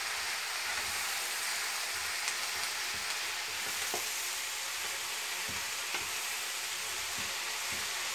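Mallow leaves frying in olive oil with onion and peppers, sizzling with a steady hiss while a wooden spatula stirs them in a granite-coated pan, with a few soft knocks and scrapes of the spatula.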